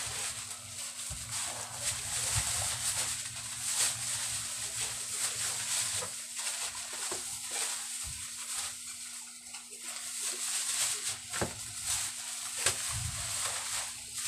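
Plastic grocery bags rustling and crinkling as rice and groceries are packed into them by hand, with irregular crackles over a steady low hum.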